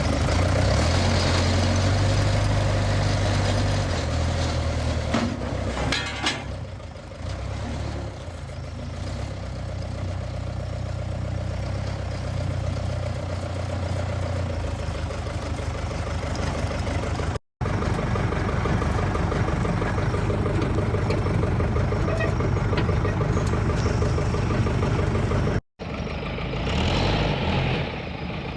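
Backhoe's diesel engine running steadily with a deep rumble, cut off abruptly twice as the clips change.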